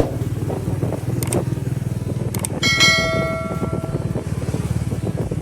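A vehicle engine running steadily, with a single bell-like ring about halfway through that fades out over about a second.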